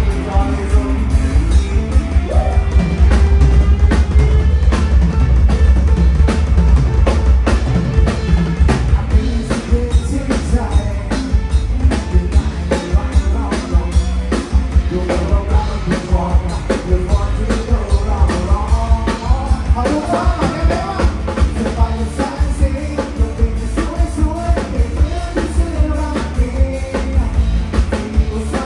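Live rock band playing, with a drum kit beating steadily under heavy bass and a singer's voice over the top.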